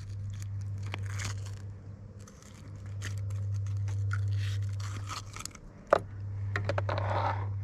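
Close scraping, clicking and rustling as a hook is worked out of a bass's mouth with pliers, over a steady low hum; one sharp click stands out about six seconds in.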